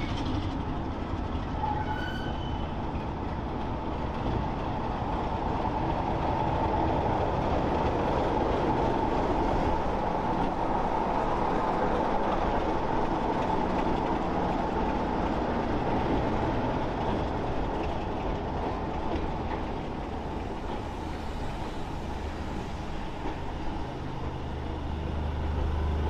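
BR Class 33 diesel locomotive running with its train of coaches: a steady blend of engine and wheel noise that swells a little in the middle and again near the end.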